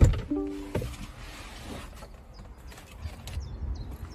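Handling noise from someone getting out of a car: a loud thump, a short creak, then rustling and scattered clicks.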